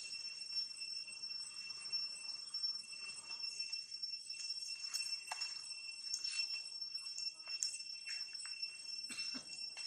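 A steady high-pitched insect drone, with scattered light rustles and clicks of dry leaf litter as macaques move and forage over it.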